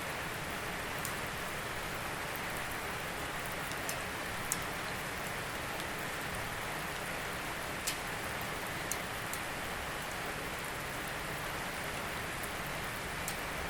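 Steady rain falling, an even hiss with scattered sharp drip ticks, the clearest about four and eight seconds in.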